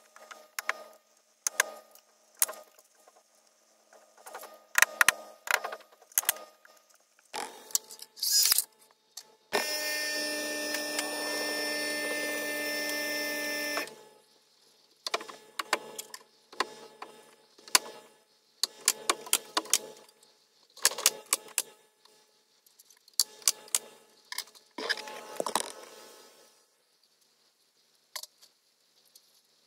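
Sharp cracks of a nailer fired in quick clusters while fixing tongue-and-groove pine boards to the soffit joists. About ten seconds in, a steady machine hum runs for about four seconds and then cuts off.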